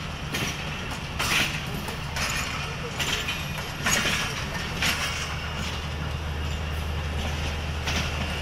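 Steady low hum of an idling diesel locomotive, with the voices of an onlooking crowd and short sharp sounds about once a second.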